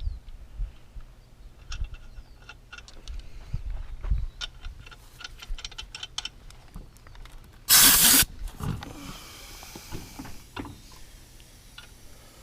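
Scattered metal clinks and knocks of tools being handled during engine repair, with one loud hissing burst of about half a second roughly eight seconds in, followed by a faint hiss.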